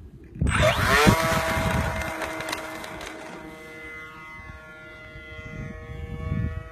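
RC model plane's motor and propeller throttling up, a sudden rush of noise with a rising whine about half a second in, then settling into a steady whine of several held tones that slowly fades.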